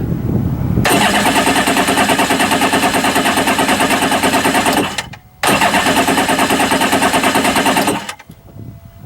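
Kawasaki STX-12F jet ski engine being cranked by its electric starter in two presses, a longer one and a shorter one, each with a fast, even pulsing beat. Each stops abruptly without the engine catching and running on.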